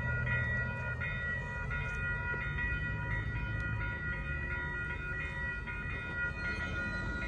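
Electronic level-crossing warning bells (WCH e-bells) ringing in a fast repeating ding, about three strokes a second, as the crossing's warning cycle runs, with a low rumble underneath.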